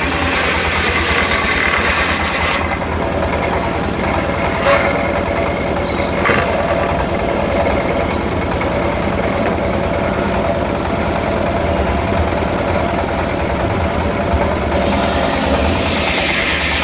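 Engine driving a circular sawmill running steadily. A louder rushing hiss lies over it for the first few seconds and again near the end, with a couple of brief clicks in between.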